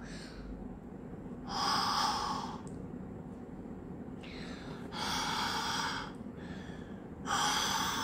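A child huffing out breath three times, each a breathy exhalation about a second long, onto a small colour-changing silicone toy to warm it.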